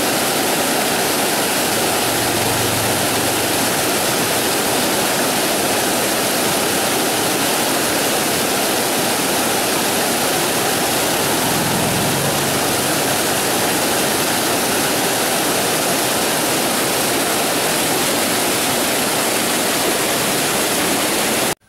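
Small waterfall of water pouring over rocks, a steady even rush that cuts off suddenly at the end.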